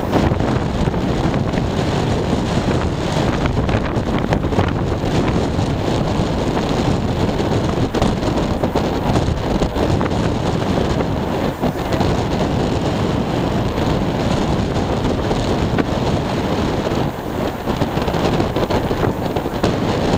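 Wind buffeting the microphone: a steady, dense rushing noise, heaviest in the low range.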